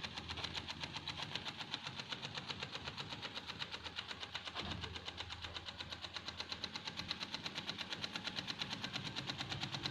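Small homemade steam engine running at speed, its exhaust chuffing in a fast, even beat of several strokes a second.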